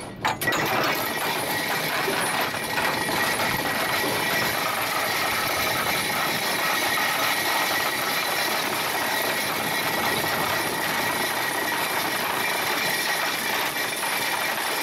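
Anchor chain running out from the boat's windlass and over the bow roller as the anchor is dropped: a steady metallic rattle.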